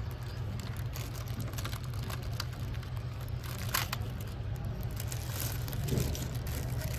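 Handling of packaging: plastic crinkling and small clicks, with a louder rustle about four seconds in, over a steady low hum.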